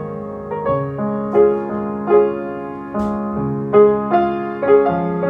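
Piano music: a slow, gentle melody of struck notes, one about every half second, over held lower notes.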